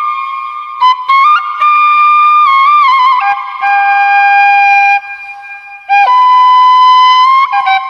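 Background music: a flute playing a slow melody of long held notes, stepping up and down with short ornamental flicks between notes.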